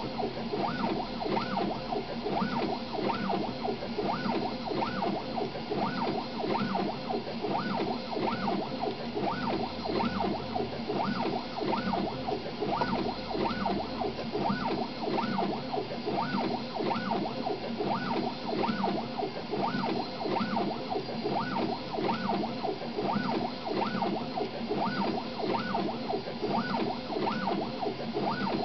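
3D printer's stepper motors whining as the print head races back and forth at about 300 mm/s, the pitch rising and falling with each acceleration and reversal in a steady repeating pattern, roughly one and a half to two sweeps a second.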